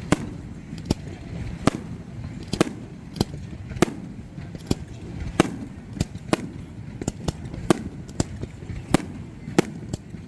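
Aerial fireworks going off in a display: a quick, irregular series of sharp bangs, roughly two a second, over a steady low background rumble.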